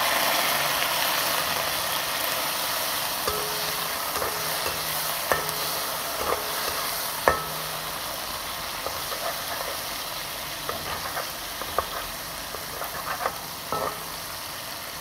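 Tomatoes and garlic sizzling in hot oil in a wok, with a metal spatula clinking and scraping against the pan as they are stirred. The sizzle is loudest at the start and slowly eases off.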